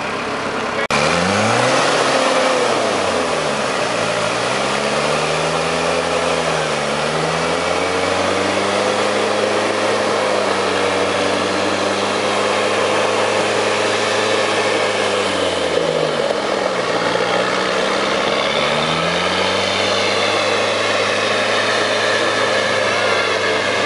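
Auverland 4x4's diesel engine working hard as the stuck vehicle climbs out of a mud-filled hole. The revs rise and fall several times, then hold steady for long stretches, with one more dip and rise about two-thirds of the way through.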